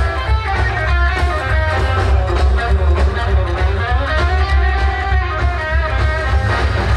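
Music led by electric guitar over a heavy bass line.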